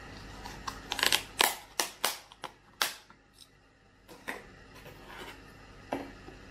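Thin clear plastic lid being pried off a takeout pickle cup: a quick run of sharp plastic crackles and snaps, then a few lighter clicks near the end.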